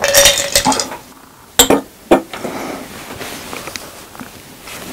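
A glass jar with ice in it set down on a table, giving two sharp knocks about a second and a half and two seconds in. A short noisy sound comes first, at the start.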